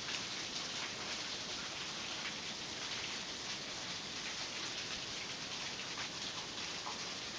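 Water from a small waterfall falling and dripping onto rock, a steady patter and splash of many drops.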